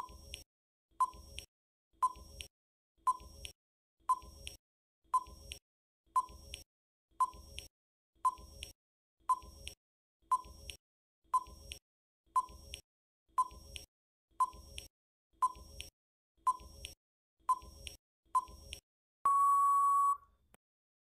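Quiz countdown timer sound effect: a short beep about once a second, then one long steady tone near the end signalling that time is up.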